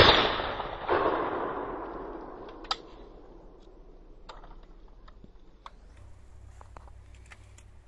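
Browning trap shotgun fired twice: the first report fades as the sound begins, a second shot comes about a second in, and its echo fades over a couple of seconds. A few sharp clicks follow as the gun is broken open.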